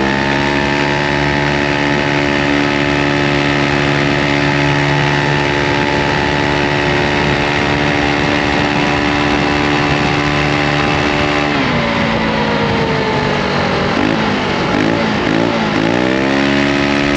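Aprilia SR GT 125 scooter's single-cylinder four-stroke engine and exhaust running at steady high revs. About twelve seconds in the revs drop, rise and fall a few times, then climb again and hold near the end.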